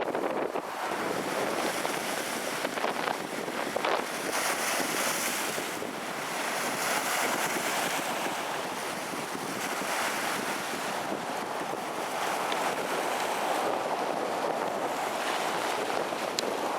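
Storm wind blowing hard across the microphone with surf breaking on the shore, a steady rushing noise that swells and eases in gusts.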